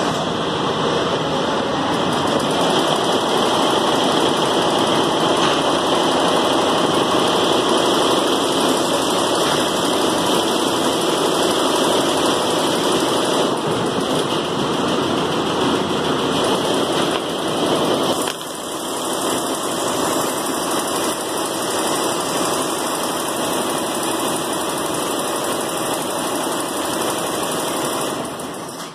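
Steady, loud machine running noise with no clear beat, dropping a little in level about eighteen seconds in.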